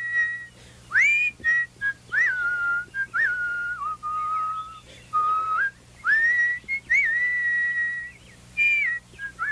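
A person whistling a birdlike tune in imitation of the clockwork nightingale's song: held notes that each swoop up at the start, a run of shorter lower notes in the middle, then back up to the higher held notes.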